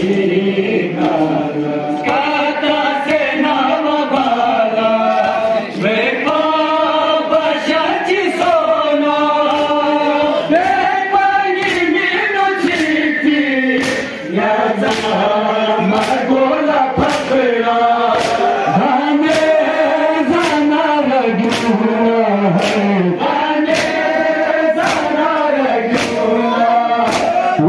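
A group of men chanting a Balti noha, a Shia mourning lament, together in a melodic chorus. From about halfway in, sharp strikes keep a steady beat about once a second, which fits the crowd's chest-beating (matam).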